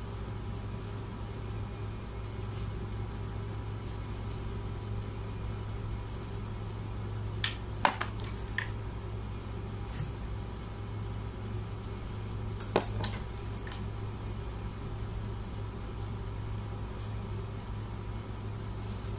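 Steady low hum, with a few light clicks and knocks of cable plugs being handled, twice around the middle.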